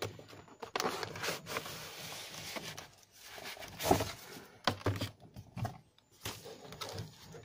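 Cardboard box packaging being handled: the lid slides off and the inner tray and paper cover are shuffled, giving uneven rustling and light knocks, the loudest about four seconds in.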